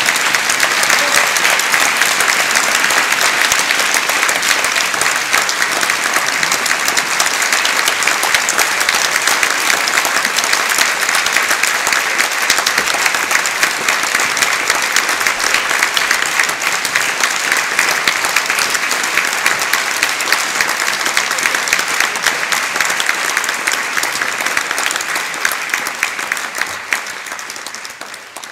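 Audience applauding: dense, steady clapping that thins and tails off near the end.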